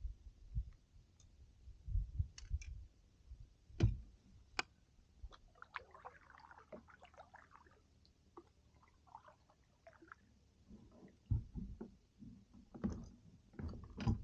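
Faint knocks and thumps from a kayak being paddled, with a couple of sharp clicks about four seconds in and a brief spell of light patter a couple of seconds later.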